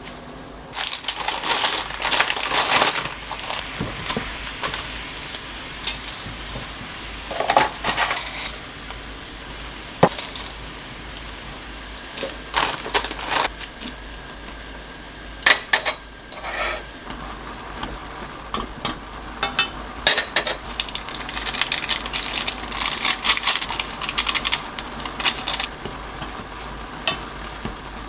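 Food sizzling in a frying pan while a utensil stirs it, with bursts of scraping and occasional clinks against the pan.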